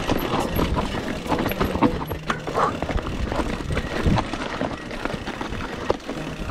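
Mountain bike clattering down a rocky, loose-stone singletrack: a dense, irregular run of knocks and rattles as the tyres hit rock and the bike shakes.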